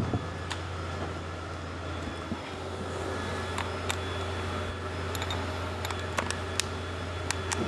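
Steady low shop hum, with a few light metallic clicks as a socket on an extension is fitted onto a cordless Milwaukee driver.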